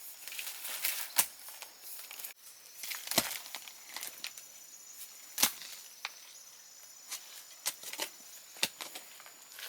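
A handful of sharp, irregular knocks spaced a second or two apart, with light rustling and handling noise in between.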